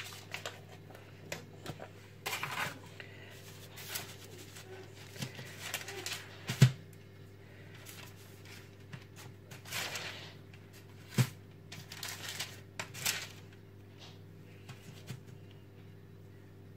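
Parchment paper rustling and crinkling under the hands while slices of cold butter are set down on it, with a few sharper taps, the loudest about seven and eleven seconds in. A steady low hum runs underneath.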